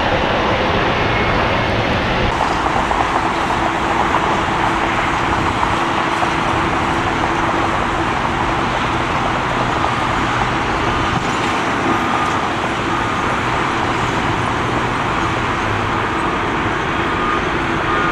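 Jet airliner engines running, a steady loud roar with a faint high whine over it.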